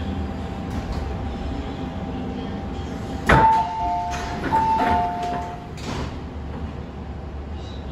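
MTR M-train passenger doors opening: a sharp click as they release, then a two-note door chime sounding twice while the doors slide open, and a knock as they come fully open about six seconds in. The stopped train's equipment hums steadily underneath.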